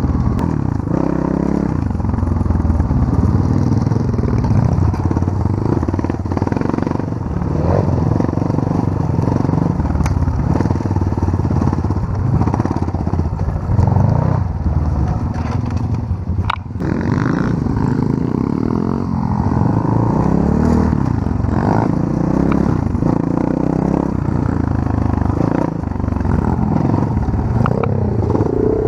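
Pit bike engine running while being ridden off-road, the revs rising and falling continually, with a few short knocks. There is a brief lull about sixteen seconds in.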